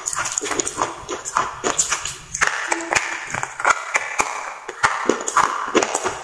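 Water-soaked slate pencils crunching as they are bitten and chewed close to the microphone: a quick, uneven run of sharp, crisp cracks, a few each second.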